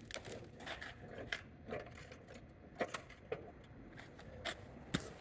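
A car jack being worked to raise the mower: a few faint, irregular metallic clicks and clinks.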